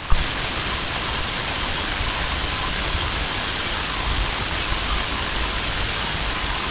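CB radio receiver hissing with steady static: open-squelch band noise with no station transmitting, after a short pop at the very start.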